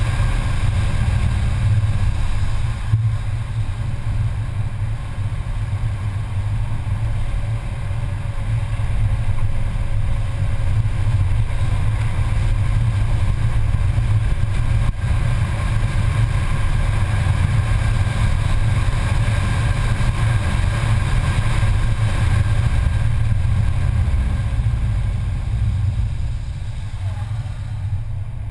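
Mercedes-Benz C280 engine and road noise heard from inside the cabin while the car is driven hard on track: a steady, loud low drone, dropping off slightly near the end.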